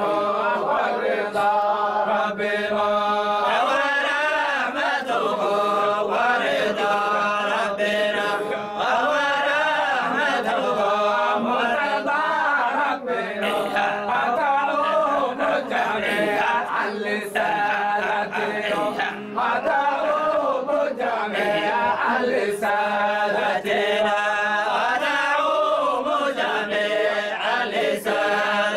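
A group of men chanting a Sufi dhikr of the Zaylaciyya order together, in a melodic line that rises and falls without pause.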